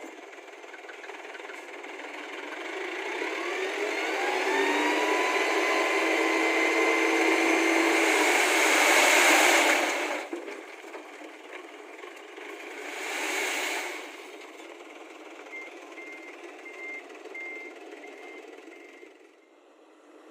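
A heavy construction machine's diesel engine revving up, held high and loud for several seconds, then dropping back, with a second short rev a few seconds later. Near the end, a reversing alarm beeps steadily at a bit under two beeps a second.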